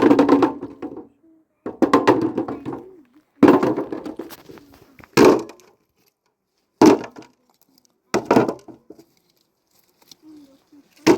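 A person's voice in short bursts, then a few short sharp knocks spaced a second or two apart.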